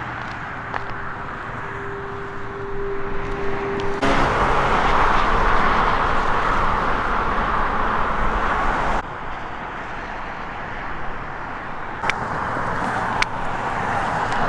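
Steady road traffic noise from a highway, loudest in the middle section, with a faint steady hum in the first few seconds. A few sharp footsteps on a concrete path near the end.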